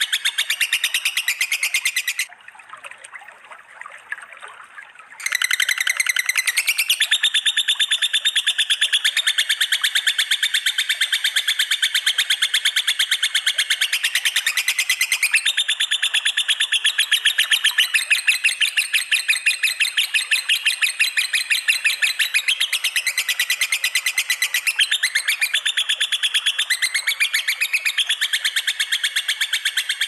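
Recorded mix of caged songbird song from lovebirds, cililin (black magpie) and canaries: a long, very fast, continuous high trilling chatter. It drops to a quieter passage for about three seconds a couple of seconds in, then runs on unbroken.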